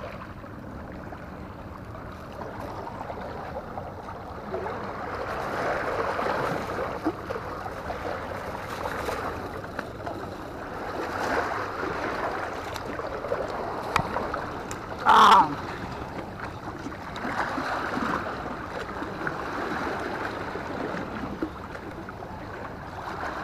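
Sea waves washing against rocks and a concrete seawall, a steady wash that swells and eases every few seconds. About two-thirds of the way in comes one short, loud, harsh cry.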